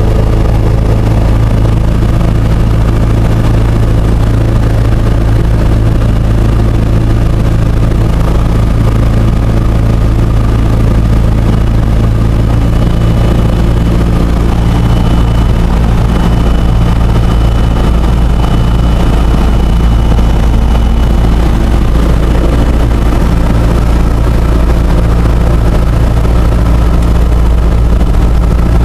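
Cessna 172's piston engine and propeller droning steadily, heard from inside the cabin.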